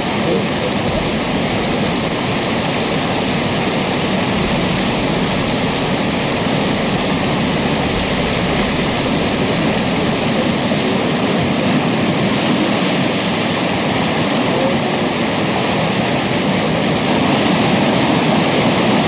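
Steady loud rush of storm wind and heavy seas breaking against a vessel, getting slightly louder near the end.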